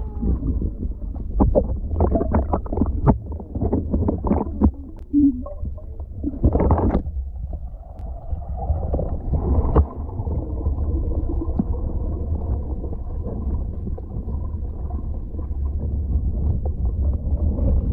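Splashing and popping bubbles at the water surface, heard through a GoPro's waterproof housing, with many short sharp clicks over a low rumble. About eight seconds in the camera is fully under water and this gives way to a steady muffled underwater rumble.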